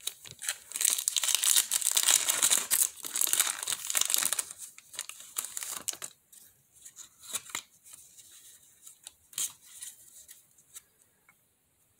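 A foil Pokémon booster pack wrapper being torn open and crinkled for about four seconds, then faint scattered ticks as the trading cards are slid out and handled.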